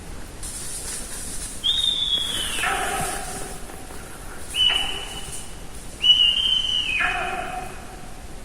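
Sika deer whistling: three shrill calls, each held high for about a second and then dropping sharply to a lower tone. These are the whistles the deer give when reacting to danger and when calling to one another.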